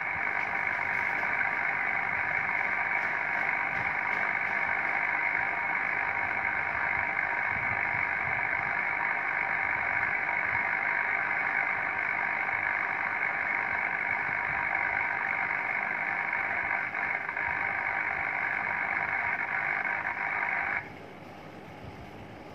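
uBitx HF transceiver receiving the 40-metre band through its speaker: a steady hiss of noise with several faint steady tones in it, the daytime spurious interference the owner blames on neighbourhood solar panel systems, picked up on a long wire antenna without a common-mode choke. About 21 seconds in the noise drops suddenly to a much lower hiss.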